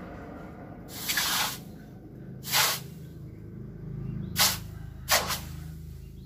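Hand-pumped piston bellows pushing air into a charcoal forge fire, giving short whooshes at uneven intervals over a low steady hum.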